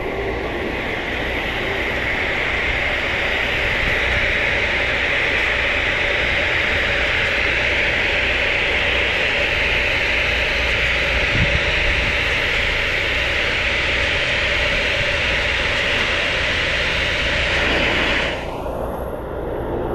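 Pressure washer jet spraying roof tiles: a steady hiss of water on the tiles, which cuts away about eighteen seconds in.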